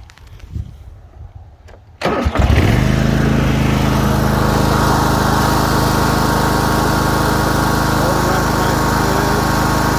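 Toro TimeCutter SS4235 zero-turn mower's Kohler 22-horsepower engine started about two seconds in: a brief crank, then it catches and runs steadily.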